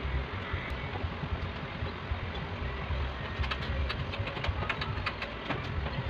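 A steady low engine-like rumble, with a run of light clicks in the second half.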